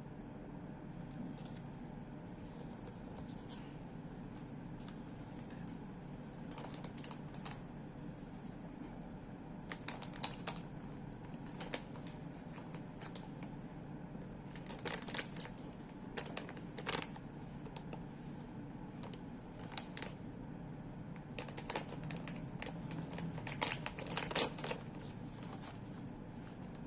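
Product packaging being handled by hand: irregular clicks, crinkles and scrapes in clusters over a steady low hum.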